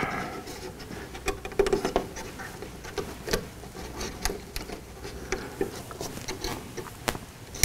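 Faint, irregular small clicks and ticks of fingers handling thin thermostat wires and pressing the push-button wire terminals on a Nest thermostat base plate, with a few sharper clicks among them.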